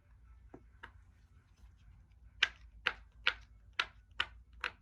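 Bubbles of a silicone pop-it fidget toy being pressed through, making sharp pops. A few faint pops come first, then from about halfway in six louder pops, about two a second.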